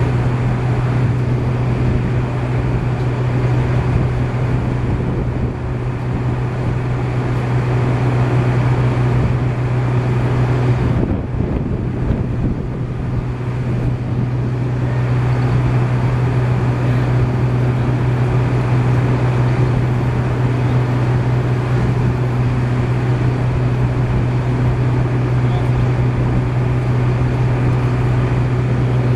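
Engine running steadily, a constant low drone that dips briefly about eleven seconds in.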